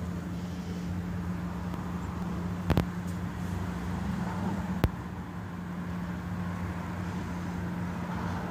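A steady low mechanical hum, with a couple of sharp clicks midway, about two seconds apart.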